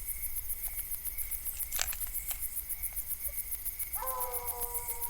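Crickets and other night insects trilling and pulsing steadily. About four seconds in, a long, steady-pitched call begins, which from a coonhound out on the chase would be a bay.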